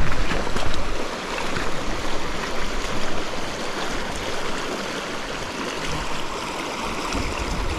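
River current running steadily: a constant rush of flowing water.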